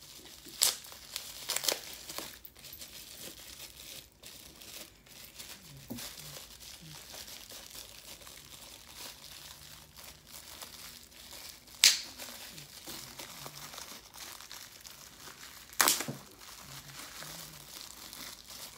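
Product packaging crinkling and rustling as it is handled and unwrapped, with four sharp clicks or knocks: two in the first couple of seconds, one about 12 seconds in and one about 16 seconds in.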